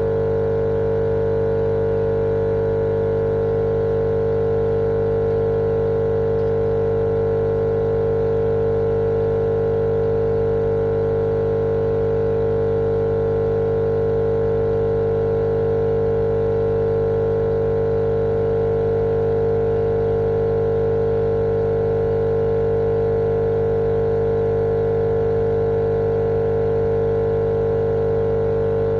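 Steady, unchanging droning hum of a motor-driven machine with one strong mid-pitched tone, played continuously as baby sleep noise.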